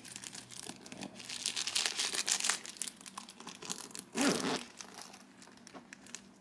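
Crinkling and rustling as hands handle a leather boot over tissue-paper packing, with a short louder burst just after four seconds, then dying away near the end.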